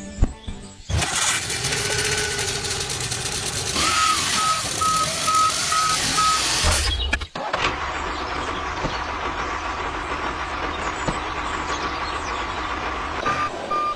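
Heavy vehicle engine running, with a reversing alarm beeping about twice a second for a few seconds midway. The engine sound breaks off about seven seconds in, and another steady engine noise follows.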